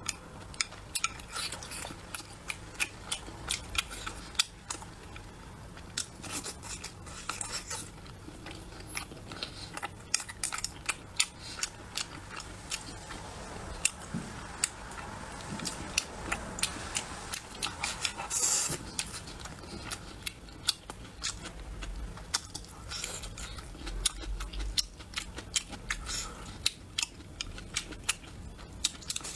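Close-miked eating of braised pork intestines: chewing and mouth sounds, with frequent sharp clicks of chopsticks against the bowl.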